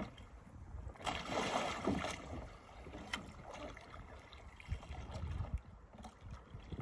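Water splashing and sloshing around a Rebel Ilaga sea kayak as it capsizes and is rolled back upright, with a louder splash about a second in and a few small knocks. Wind rumbles on the microphone.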